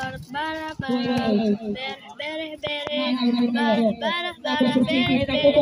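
A high-pitched voice singing in short phrases with held notes, with two quick knocks about halfway through.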